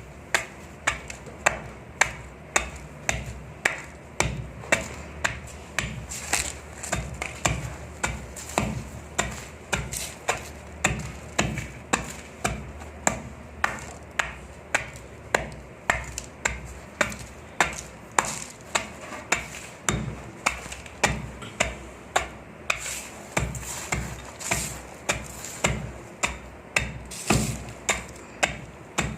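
Clumps of dry, dusty sand crumbling with crisp crunches, one short crunch after another in a steady run of a little under two a second.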